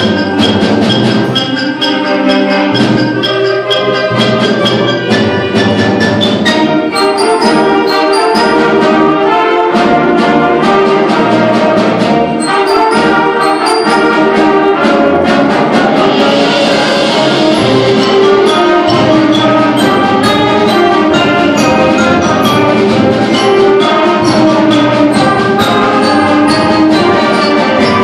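Junior high school concert band playing a piece live, brass and woodwinds sustaining chords over frequent percussion strokes.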